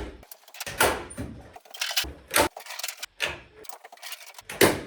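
A stapler fastening rafter vent baffles in place: a series of sharp clacks, about one a second, irregularly spaced.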